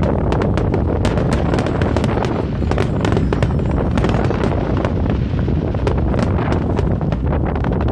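Fireworks crackling and popping in quick, dense succession over a steady low rumble of wind buffeting the microphone.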